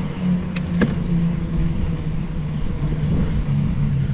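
Wind rushing over the microphone and tyre noise of a bicycle rolling on asphalt, with a wavering low hum and two sharp clicks about half a second and a second in.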